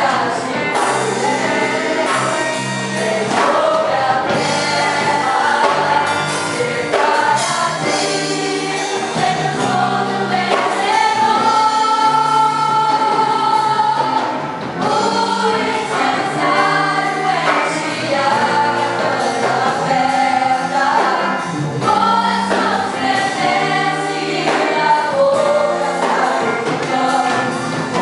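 Gospel worship song in Portuguese sung by a group of voices with a full band, including a long held note about halfway through.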